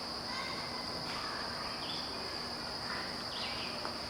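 Crickets and other insects trilling in a steady high chorus, with shorter chirping calls repeating about every second and a half.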